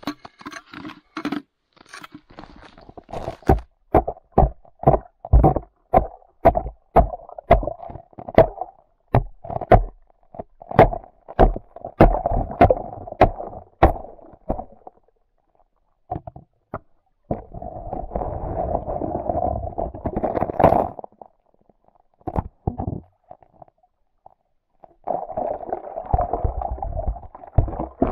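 Axe chopping the ice out of a frozen-over ice hole, a steady run of sharp blows, about two a second, that stops after a dozen seconds. Then a plastic bucket is dipped into the hole and sloshes and gurgles as it fills with water, twice.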